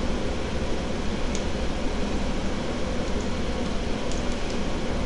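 Steady mechanical hum, like a fan or air-conditioning unit running, with a few faint clicks about a second in and again around four seconds in.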